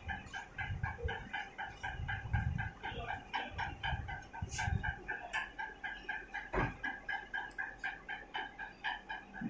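A bird calling in a fast, steady series of short clucking notes, about five a second, with one sharp click about two-thirds of the way through.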